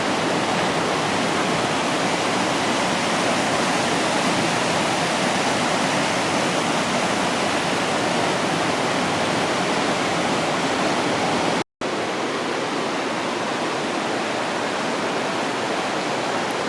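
Waterfall on Johnston Creek pouring steadily, an even rushing roar with no let-up, broken only by a split-second dropout about twelve seconds in.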